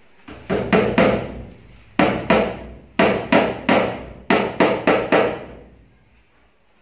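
Hammer blows driving a nail into the wall, about fourteen sharp strikes in quick runs of two to four, each ringing briefly, while electrical cable is being fastened along the wall.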